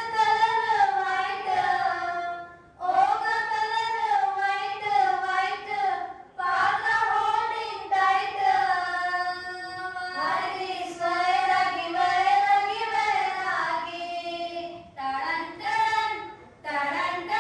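A woman singing solo into a microphone with no instruments, in long held phrases with a wavering pitch, each broken off by a short breath.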